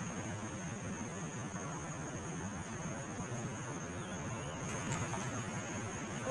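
Steady open-air background noise, an even hiss and low rumble, with a constant thin high whine over it.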